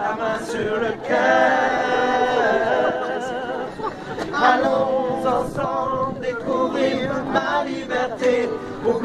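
A man and a woman singing together without accompaniment, holding long notes that waver with vibrato.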